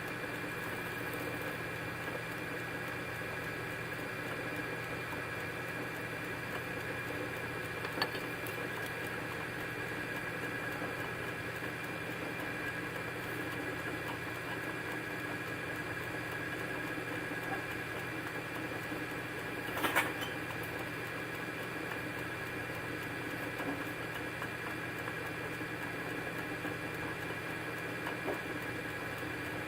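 Steady background hum with faint scratching and a few sharp clicks of small tool parts being handled, the loudest a double click about twenty seconds in.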